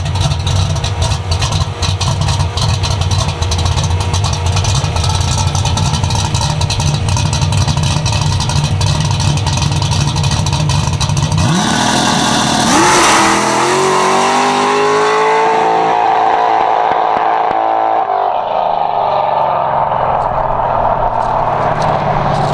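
Fox-body Mustang drag car's engine running with a choppy, uneven note at the starting line, then launching about halfway through: the engine note jumps and climbs steadily as the car accelerates away down the strip.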